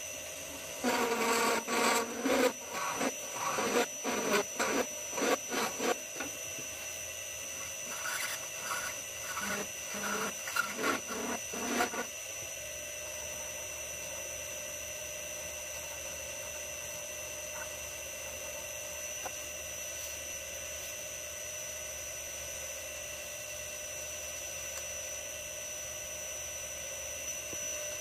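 Hand file stroked against a small brass workpiece spinning on a lathe: a long run of repeated loud file strokes over roughly the first twelve seconds, then the lathe running on steadily with a constant whine.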